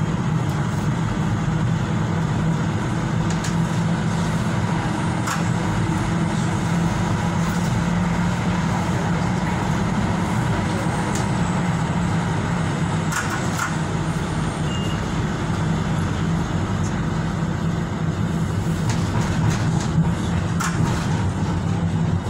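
Tyne and Wear Metro train running along the line, heard from inside the carriage: a steady rumble and hum of the train in motion, with a few sharp clicks scattered through it.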